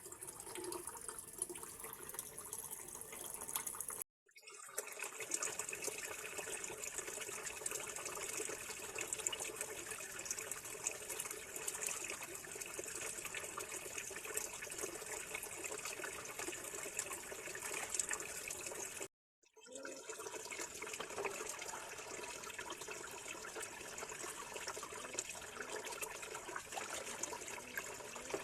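Water running steadily from a tap into a sink, cutting out abruptly twice, about four seconds in and about nineteen seconds in.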